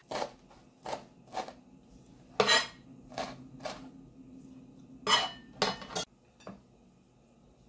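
Chef's knife chopping parsley on a plastic cutting board: about ten separate, unevenly spaced strokes that stop about six and a half seconds in.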